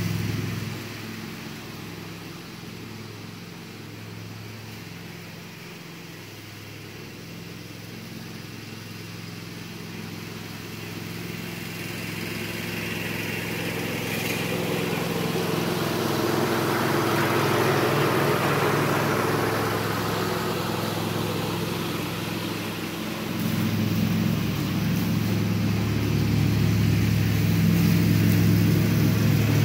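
Cub Cadet XT1 riding mower's Kohler V-twin engine running steadily while it mows, fading as it moves away, growing louder as it comes back closer, then jumping louder again about three-quarters of the way through.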